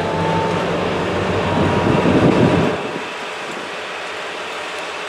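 Class 60 diesel locomotive's eight-cylinder Mirrlees engine working under load as it hauls a train of tank wagons slowly past. The engine throbs loudest about two seconds in, then falls away sharply just before three seconds in to a quieter, steady running rumble.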